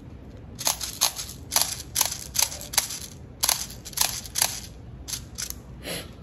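Clear plastic airsoft BB speed loader clicking as its plunger is pushed again and again, feeding 6 mm BBs into a pistol magazine: a string of a dozen or so sharp, irregular plastic clicks.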